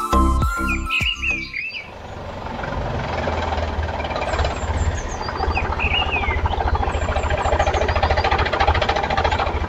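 Background music stops about two seconds in, and a small motor runs on steadily with a fast pulsing rumble. Birds chirp now and then.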